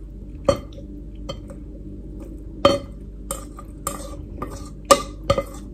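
A metal utensil clinking and scraping against a stainless steel saucepan as pasta is tipped out of it onto a plate. The clinks are sharp and irregular, with a short metallic ring, and come more often in the second half.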